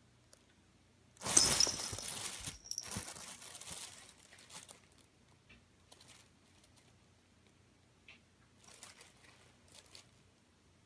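Fabric rustling and crinkling as a cat scrambles into a fuzzy cat tent. A loud burst about a second in lasts some three seconds, and fainter rustles come near the end as it shifts about inside.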